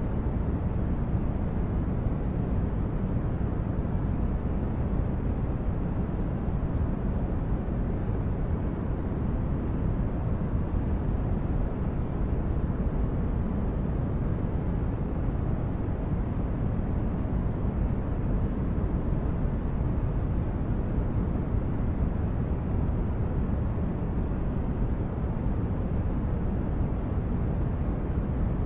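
Steady, even low rumbling noise like brown noise, with no events or changes: a synthetic spaceship-interior ambience.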